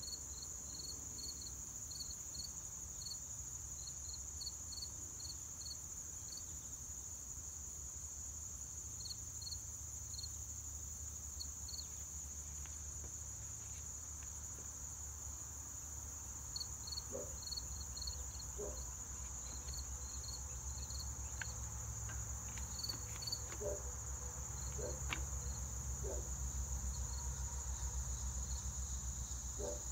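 Insects drone steadily at a high pitch outdoors, with short, regularly repeated chirps over the top. A low rumble swells in the second half, and a few faint knocks come through near the end.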